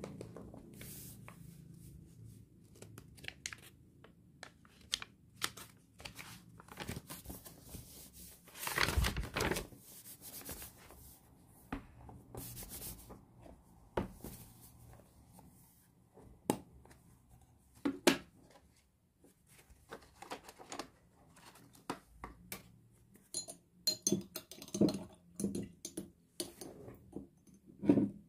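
Quiet paper handling: sketchbook pages rustling as they are turned and pressed flat, with scattered taps and one longer rustle about nine seconds in. Near the end come light metallic clicks as a small tin of watercolour pans is handled.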